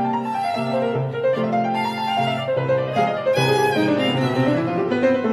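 Instrumental background music: a melody stepping up and down over steady low held notes.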